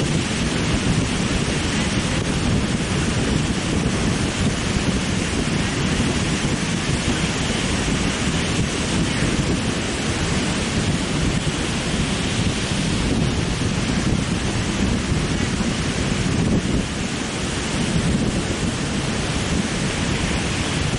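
Strong wind noise on the microphone over steady surf breaking on the shore.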